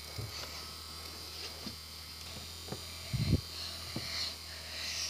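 A steady low hum with faint hiss and a few light taps, and a dull bump about three seconds in.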